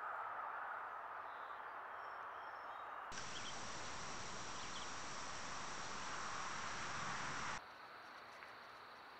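Outdoor evening ambience through trail-camera microphones: mostly steady hiss, with a faint steady high thin tone in the background. The sound changes abruptly twice, about three seconds in and again about seven and a half seconds in, where one camera recording gives way to the next.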